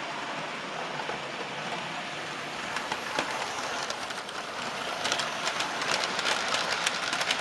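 Model railway train running along the layout track: a steady whirr of motor and wheels with rapid clicking over the rail joints, growing busier and a little louder about five seconds in as the train comes closer.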